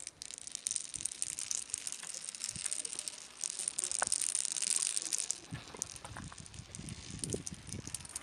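Several glass marbles rolling and clattering down the carved grooves of a stone marble run: a continuous gritty rattle of many small clicks, with heavier rumbling bursts in the second half.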